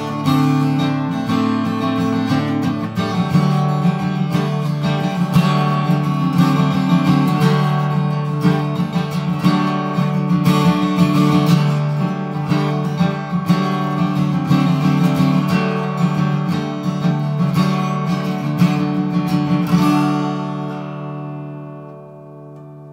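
Solo acoustic guitar playing an instrumental piece, many picked notes over a held bass. About twenty seconds in the playing stops and the final chord rings out, fading away.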